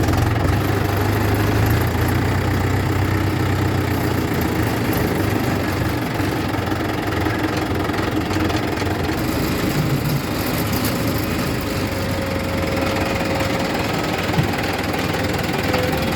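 Diesel engine of heavy machinery running steadily, with one short knock near the end.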